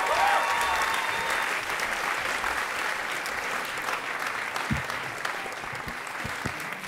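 Audience applauding a performer onto the stage, the clapping slowly dying down. In the second half come a few low knocks from the handheld microphone being handled.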